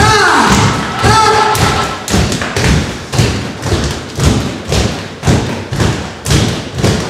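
Steady rhythmic thumping, about two beats a second, with a few high sliding tones in the first second and a half.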